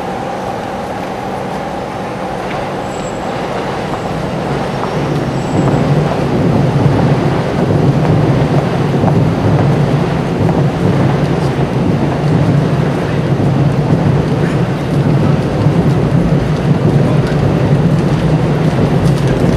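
Steady low rumble of city background noise, growing louder about five seconds in and then holding.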